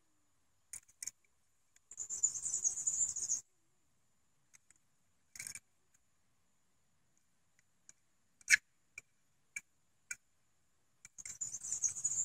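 Quiet handling noise of a small die-cast toy car turned over in the hand: a few light clicks and taps, and two short stretches of fine rattly scraping, about two seconds in and again near the end. A faint steady high whine sits underneath.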